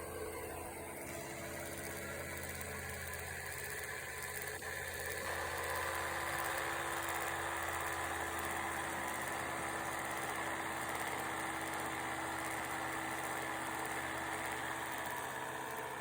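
1930s 16 mm film projector's electric motor and gear train running steadily, a mechanical hum with a high whine that grows louder about five seconds in. The gears and axles have been freshly oiled after being seized.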